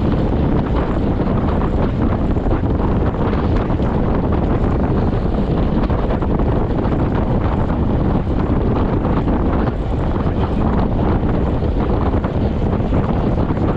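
Wind rushing steadily over the microphone of a camera on a road bicycle riding at about 38 km/h.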